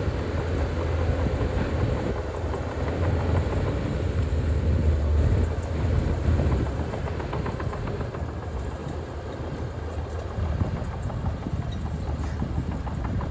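Bulldozer's diesel engine running under load with a deep rumble and the rattling clank of its steel tracks; the rumble eases about halfway through.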